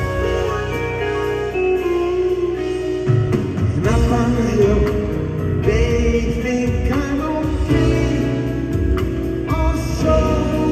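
A live band playing, recorded from the audience: saxophones, electric guitars, drums and keyboards in a dense, continuous full-band passage with a strong bass.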